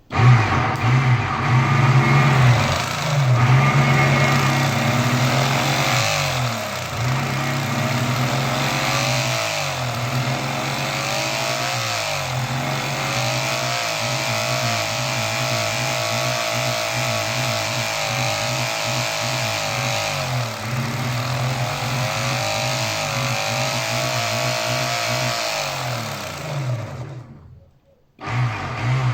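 A homemade microwave-transformer generator rig running with a loud, steady electrical hum and wavering machine tones. It switches on abruptly, cuts out near the end, then runs again briefly.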